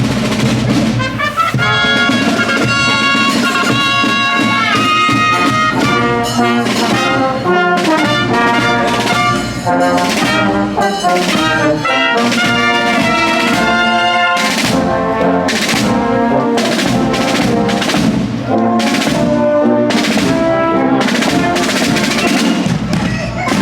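Brass band music: trumpets and trombones playing a tune over drums.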